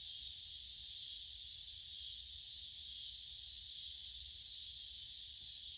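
Evening chorus of crickets in open countryside: a steady, high-pitched, unbroken trilling hum.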